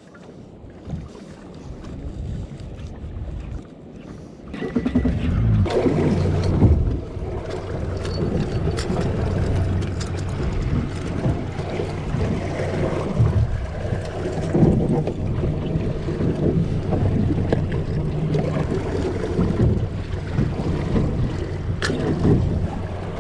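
A boat's engine runs steadily with wind rushing over the microphone, both coming in loudly about five seconds in. A few light clicks sit on top, as tackle is handled.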